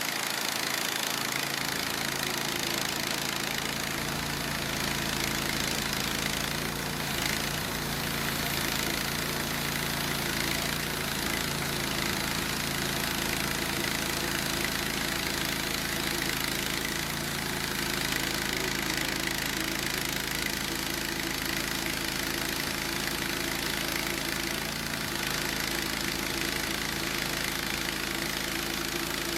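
Gasoline engine of a portable band sawmill running steadily, its pitch sagging slightly a few times about a quarter of the way in, with a dense hiss over the engine note.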